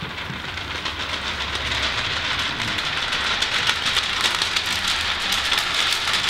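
Sheets of paper shaken and crumpled overhead by three performers: a dense crackling rustle that grows steadily louder.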